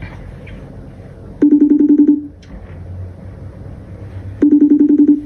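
FaceTime outgoing-call ringing tone, a fast-pulsing warble heard twice, each ring lasting under a second and the two about three seconds apart, while the call is still connecting.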